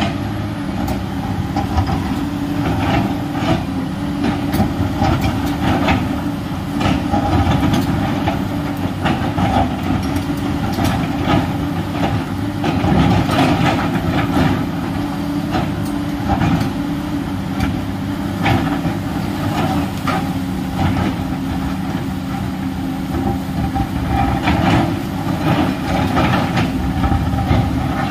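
Komatsu PC210LC crawler excavator's diesel engine running steadily, with irregular clanks and scrapes as the steel bucket digs and drags at rocky soil.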